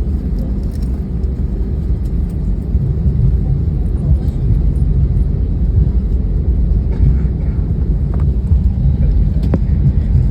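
Steady low rumble of the A320neo's cabin after landing, with a faint sharp click about nine and a half seconds in.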